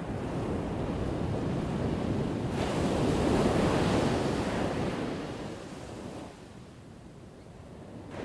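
Ocean surf. A wave breaks about two and a half seconds in and its wash fades away by about six seconds, with the next wave starting near the end.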